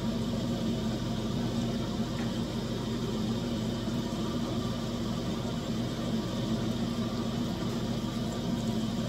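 Breaded green tomato slices frying in a skillet of hot oil, a steady sizzle over a constant low hum.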